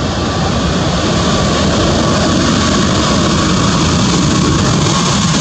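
Boeing 737 MAX 8's CFM LEAP-1B jet engines running loud as the airliner rolls along the runway, a steady roar that swells a little in the first second or two, then holds.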